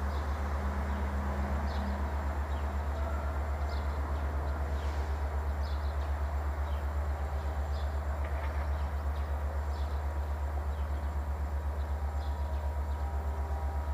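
Diesel locomotive engine running with a steady low throb, an even fast pulse, as it hauls passenger coaches away; birds chirp now and then over it.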